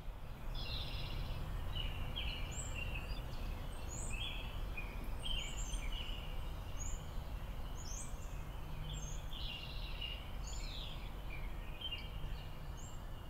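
Several small birds chirping, with many short calls overlapping, over a steady low rumble of forest ambience.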